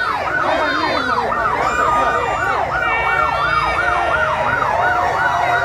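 Vehicle sirens in a fast yelp, rising and falling about four times a second, more than one sounding at once, from the cars of a slow motorcade.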